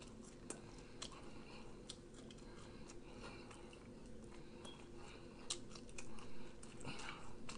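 Close-miked chewing of french fries: small mouth clicks and soft wet chewing, louder in the last two seconds.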